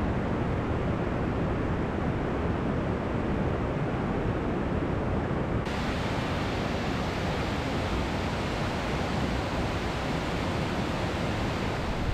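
Mountain river rapids rushing steadily over rocks. About halfway through the rush turns hissier, as a steeper stretch of white water takes over.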